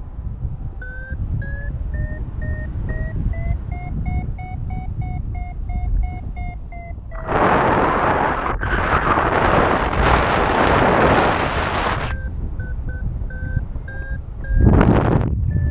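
Paragliding variometer beeping in quick, short tones whose pitch rises and then holds, signalling that the glider is climbing in lift. Loud wind noise on the microphone drowns it about seven seconds in and again near the end.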